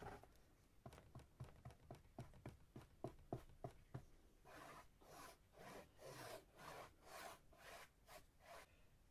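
Faint hand-crafting sounds: a quick run of light taps, then scratchy rubbing strokes about two a second on a hard surface.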